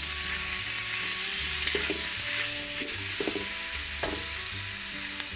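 Chicken slices and bell peppers sizzling in a stainless steel wok as they are stir-fried, with a silicone spatula scraping and tossing them now and then. Soft background music plays underneath.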